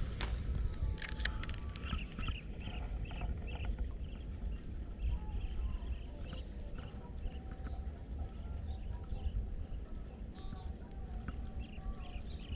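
Insects chirring: a steady high-pitched trill, joined by runs of short repeated chirps, about two or three a second, over a low outdoor rumble.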